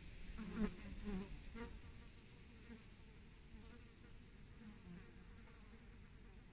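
A flying insect buzzing, louder in a few brief passes in the first two seconds, then fainter and on and off.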